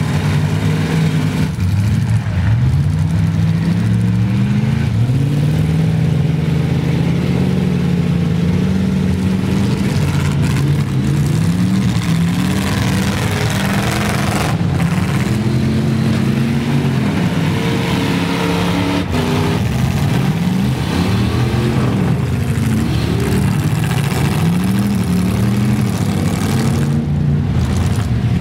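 Several demolition derby trucks' engines revving hard together, their pitches rising and falling over one another without a break. A few sharp knocks cut through, about ten, fifteen and nineteen seconds in, as the trucks collide.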